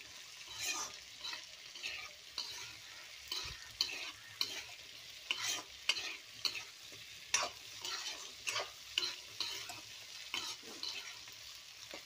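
Metal spoon stirring and scraping chopped vegetables and toor dal around a kadai as they sauté, in quick irregular strokes about one or two a second.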